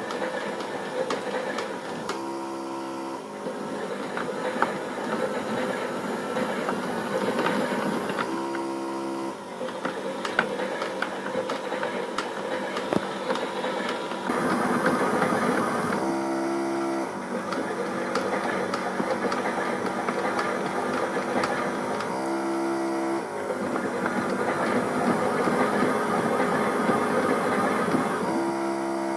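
Theo Klein Miele Novotronic toy washing machine running a wash: its small battery motor turns the drum with a steady mechanical whirr. About every six seconds the running breaks for roughly a second with a short even hum as the drum changes direction for a reverse tumble.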